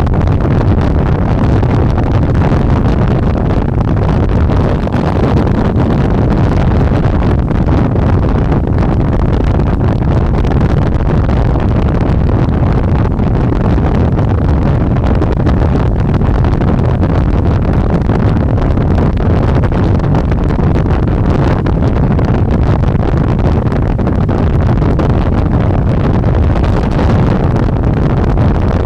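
Loud, steady wind buffeting on the microphone of a rider moving at speed on an electric bike.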